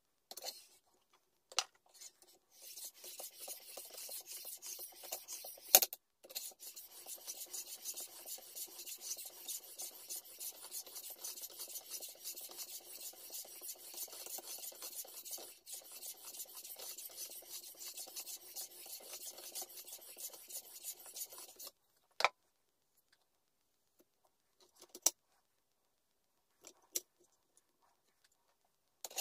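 Knife blade scraping back and forth on a whetstone in a sharpening jig, in quick, steady strokes that stop about two-thirds of the way through. A few sharp clicks sound before and after the strokes.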